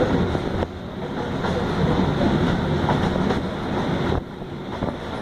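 Passenger train running along the track, heard from on board: a steady rumble and rattle of the carriage. It drops suddenly in level about half a second in and again about four seconds in.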